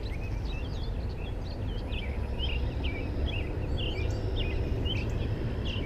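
Several small birds chirping and twittering in quick, varied calls throughout, over a steady low rumble.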